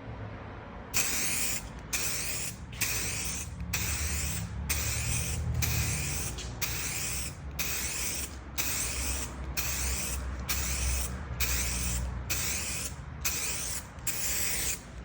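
SprayMax 2K two-part clear coat aerosol can spraying a headlight lens in repeated hissing passes about a second each, with brief pauses between them, starting about a second in.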